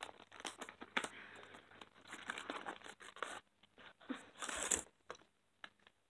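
Paper and cardboard packaging being torn open and crinkled by hand: a run of rustling and small clicks, with a louder tear about four and a half seconds in.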